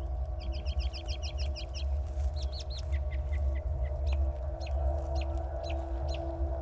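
Bird calls: a quick run of about ten high chirps in the first two seconds, then scattered short, falling chirps, over a steady low rumble.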